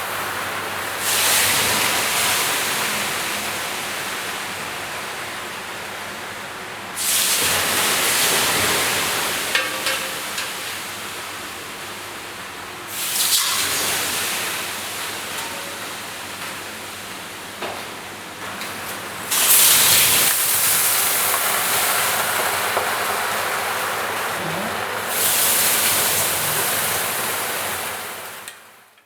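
Water poured onto hot sauna stones, hissing into steam in five sudden surges about six seconds apart, each dying away slowly: a sauna infusion (Aufguss).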